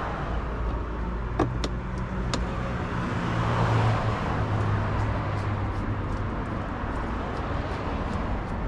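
A motor vehicle running nearby, a steady low drone that swells for a moment mid-way, with three sharp clicks early on from hand work.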